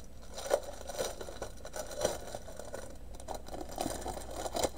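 Clear plastic packaging of a diamond painting kit crinkling and rustling as it is handled close to the microphone, with irregular sharp crackles, the loudest about half a second in and just before the end.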